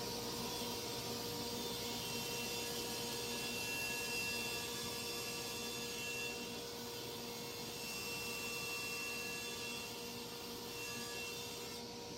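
Table saw running steadily while cutting a cove, a constant motor hum with a higher whine that comes and goes as the wood is fed across the blade.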